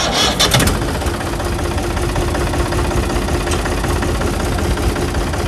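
Mahindra 295 DI Turbo three-cylinder diesel tractor engine, just self-started, catching with a few sharp knocks in the first second and then idling steadily.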